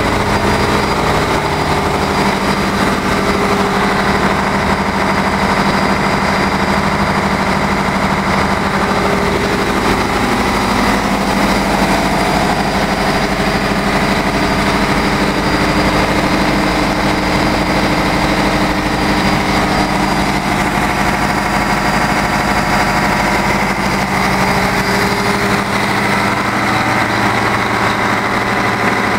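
Loud, steady din of running diesel machinery in a cargo ship's engine room, with several steady humming tones over a broad mechanical roar.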